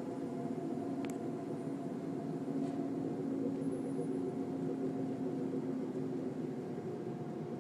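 A steady low drone with several held tones layered over a noisy hum, with a single sharp click about a second in.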